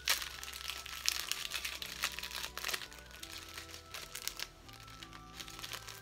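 Thin clear plastic bag crinkling and crackling in the hands as it is opened and its contents pulled out, in short irregular bursts, the sharpest at the very start and about one and two seconds in. Soft background music plays underneath.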